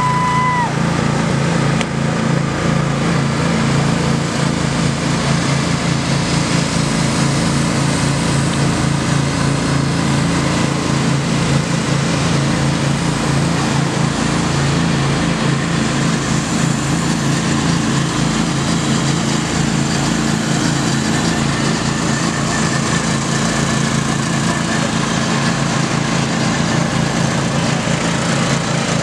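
Riding lawn mower engines running steadily at racing speed.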